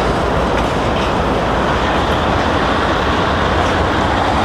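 BNSF freight train's centre-beam flatcars rolling past close by: a steady, loud rumble of steel wheels on rail.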